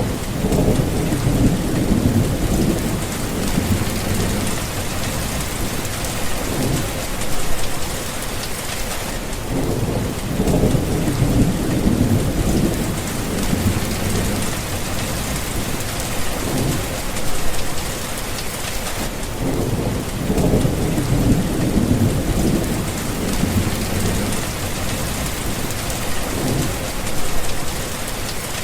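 Thunderstorm: steady heavy rain falling, with low rolling thunder swelling and fading every few seconds.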